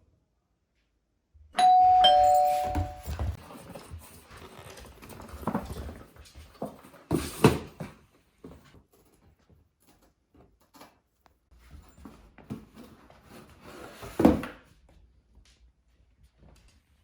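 Doorbell chime ringing a two-note ding-dong, a higher note then a lower one, about a second and a half in. Rustling and clattering follow, with two sharp knocks later on.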